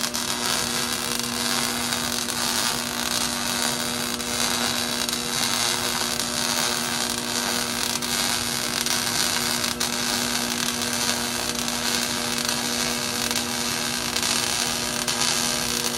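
Electric arc welder laying a bead: a steady sizzling hiss over the welder's electrical hum.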